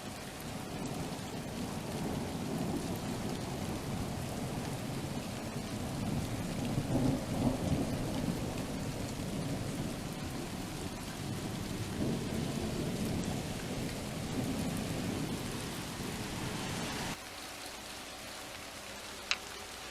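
Long rolling thunder over steady rain. It swells to its loudest about seven seconds in and keeps rumbling until it cuts off abruptly near the end, leaving only the rain and one sharp click.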